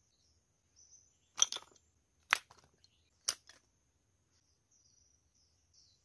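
Three sharp snaps about a second apart, the first one doubled, over faint high chirping of insects and birds.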